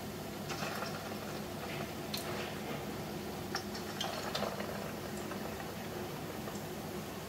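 Hot oil sizzling steadily around balls of fish surimi paste deep-frying into satsuma-age, with scattered sharp crackles.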